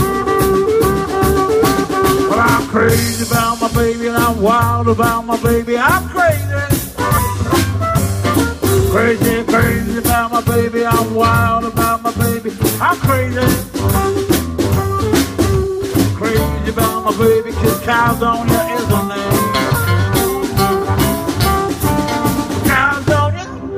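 Live blues band playing an instrumental break: amplified harmonica playing a solo with bent notes over electric bass, archtop guitar and a drum kit keeping a steady beat.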